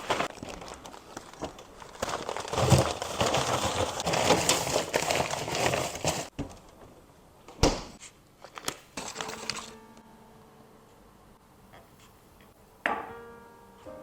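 Packaging being crumpled and crinkled by hand for about six seconds, with scattered clicks, then a few sharp knocks. A short ringing tone fades out near the end.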